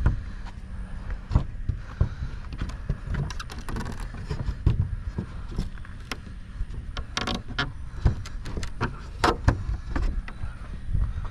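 Hand tools working on wooden fence boards: irregular knocks, taps and metallic clicks from a hammer and a nail puller as fence nails are worked loose.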